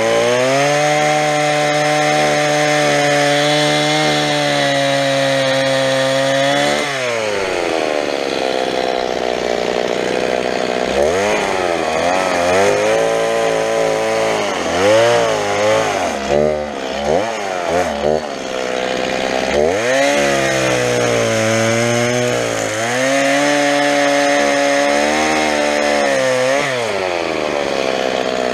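Two-stroke chainsaw cutting through a felled tree trunk at full throttle, then dropping to idle about seven seconds in. It is revved up and down in quick blips for several seconds, held at full throttle through another cut, and drops back again near the end.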